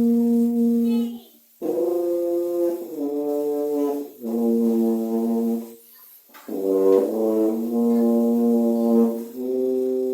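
Full-size 4/4 tuba being played: long held notes, several changes of pitch, with short breath pauses between the phrases.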